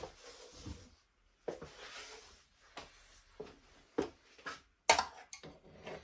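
A metal snake hook working inside a mesh-fronted terrarium: a few bursts of scraping and rustling, then several sharp knocks and clicks in the second half.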